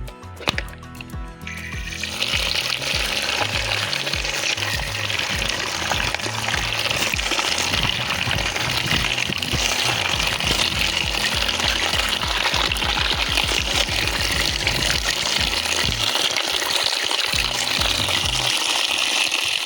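Background music with a steady bass beat, joined about a second and a half in by a steady rushing hiss that lasts to the end and is louder than the music.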